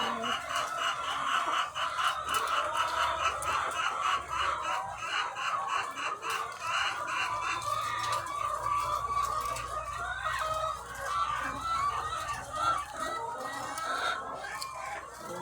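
A large flock of egg-laying hens clucking and calling all at once: a dense, unbroken chorus of many overlapping voices.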